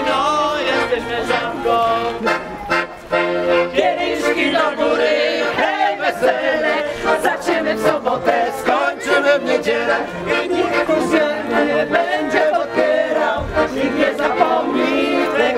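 Accordion playing a lively folk tune while a group of people sing along.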